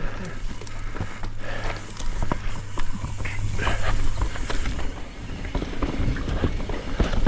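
Mountain bike clattering down a rough rocky trail: tyres rumbling over rocks and roots, with frequent knocks and rattles from the chain, suspension and frame. A steady low hum runs through the first five seconds.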